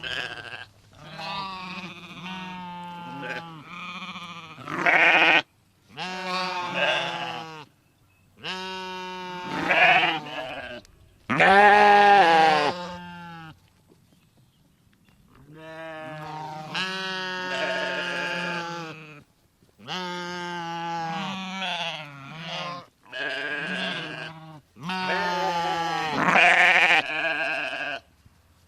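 Bleating livestock: about a dozen drawn-out, wavering bleats, each a second or two long, with short pauses between them.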